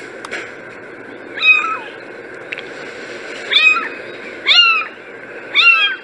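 Kittens meowing: four short, high-pitched mews, each rising then falling in pitch, one about a second and a half in and three more in quick succession in the second half.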